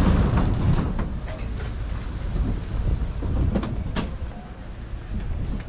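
Open tour trolley running with a low rumble that drops away about a second in, leaving a quieter hum. A few sharp clicks and knocks follow, the loudest about four seconds in.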